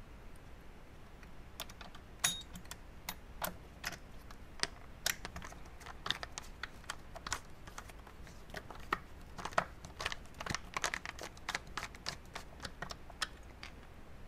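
Rapid, irregular small metallic clicks and taps of a screwdriver, tweezers and a small screw against the metal transport-lock bracket of a Beogram turntable as the screw is worked back in. The clicking starts a second or so in, with one sharper click soon after, and stops shortly before the end.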